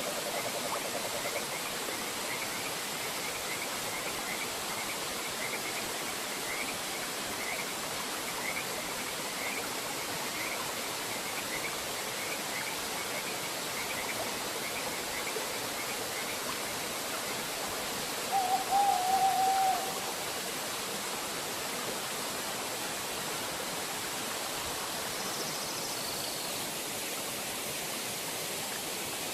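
Waterfall rushing steadily, with birds calling over it: a short high chirp repeated about twice a second through the first half, one louder, lower warbling call lasting about a second and a half about two-thirds of the way in, and a brief high note near the end.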